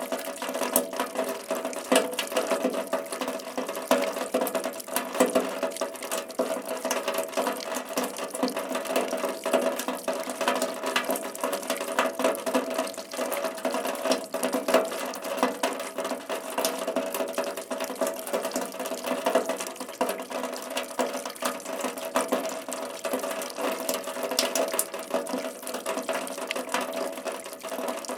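Rain falling, heard close up as a dense, steady patter of many separate drops striking a hard surface.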